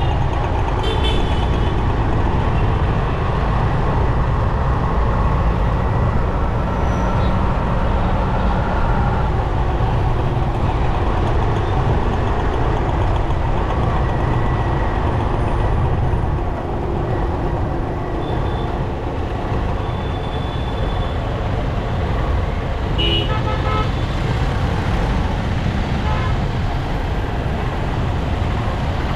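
Steady road and engine noise from riding a motorcycle through busy city traffic, with a few short vehicle horn toots, the clearest about a second in and about 23 seconds in.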